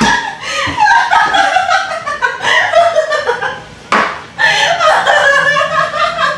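Two people laughing hard, in long wavering peals without words. A single sharp click cuts through about four seconds in.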